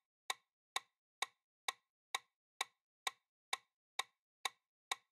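Countdown timer sound effect: even, clock-like ticks, about two a second.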